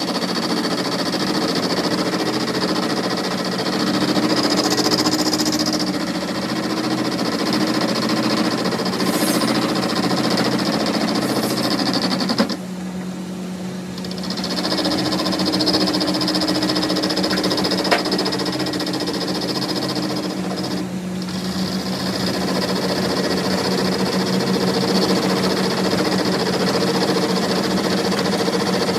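A workshop machine running steadily, with a constant low hum and a higher whine and hiss over it. The higher sound drops out for about a second and a half around twelve seconds in, and briefly again later, while the hum carries on.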